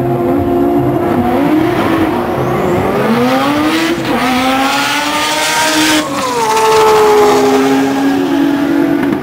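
Drag-racing cars launching off the start line and accelerating hard down the strip. The engine pitch climbs, with a gear change about four seconds in and another about six seconds in, then holds and slowly falls as the cars pull away.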